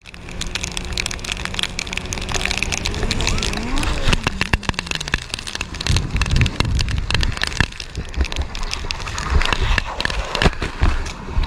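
Vehicle noise picked up by a dashcam microphone, dense with sharp clicks and knocks. A tone rises and then falls about three to four seconds in, and heavier low thumps come around the middle and near the end.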